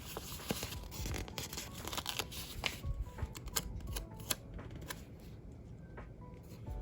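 Planner sticker sheets and paper being handled close to the microphone: rustling with many small clicks and taps, over faint music.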